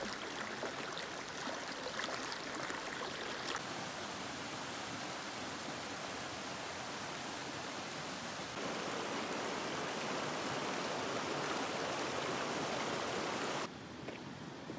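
Rushing mountain creek water tumbling over rocks in a steady rush. It shifts level abruptly about three and a half and eight and a half seconds in, then drops to a quieter trickling flow near the end.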